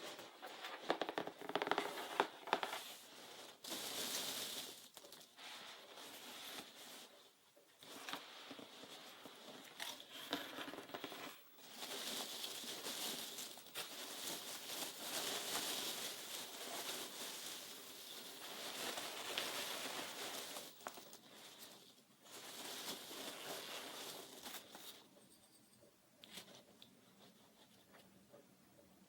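Soft rustling and crinkling handling sounds close to the microphone, in bouts of a few seconds with short pauses between and scattered small clicks, trailing off near the end.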